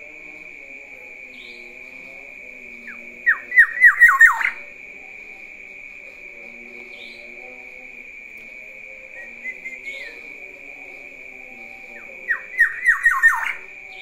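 Black-naped oriole calling loudly: two bursts of about six quick, sharp notes, each sliding downward, a few seconds in and again near the end, with a short soft warble between them. A steady high-pitched whine runs underneath.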